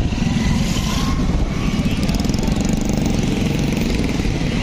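Steady low rumble of outdoor background noise, with no clear single source standing out.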